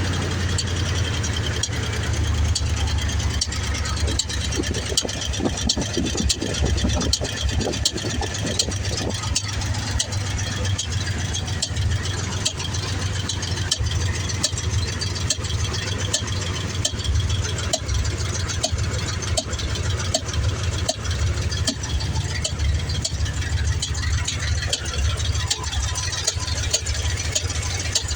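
1994 Ford F-150's rebuilt 302 (5.0 L) fuel-injected V8 with a Lunati Voodoo cam, idling steadily. Over the running engine comes an odd ticking or popping, loudest at the air intake. The owner suspects the idle air control valve, a leaking injector port seal, or poor gas.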